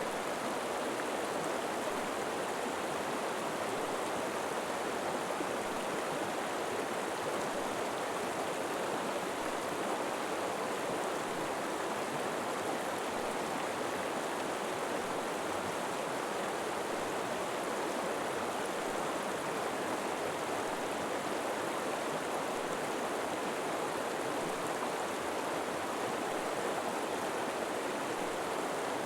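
River water flowing: a steady, unbroken rush of moving water.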